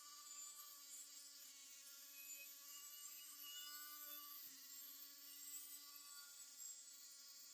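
Small high-speed rotary tool whirring with a faint steady whine as its spinning wheel brushes rust off a die-cast toy car body. The pitch dips briefly about halfway through as the wheel is pressed on.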